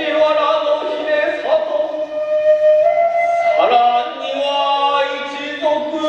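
Hiroshima kagura music: a chanted, sung vocal line in long held notes that step and slide between pitches.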